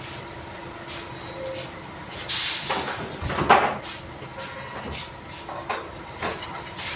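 Background noise with a sharp, loud hiss about two seconds in, a loud knock about a second later, and scattered light clicks.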